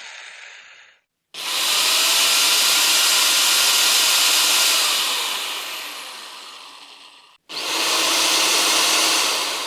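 Electric drill running in bursts: the tail of one dies away in the first second, a long burst starts abruptly just after and slowly fades out, and another starts suddenly about two-thirds of the way in and begins to fade near the end.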